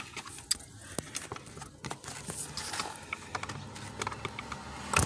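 Scattered light clicks, taps and scrapes of hands working at the clips and linkage inside a car door.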